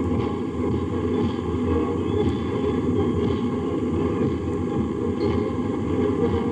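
Column of light tanks driving past, their engines and tracks making a steady, dense low noise.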